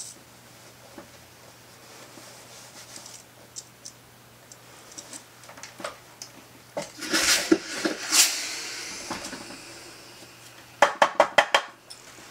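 Handling noise while pressing a jeans hem: denim being moved and rustled on the board, with light clicks and a louder spell of rustling partway through. Near the end comes a quick run of about six sharp, slightly ringing clatters of something hard being set down or knocked.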